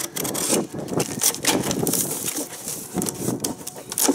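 A box cutter slicing through packing tape on a cardboard box, then the cardboard flaps being pulled open, with irregular scraping and crackling.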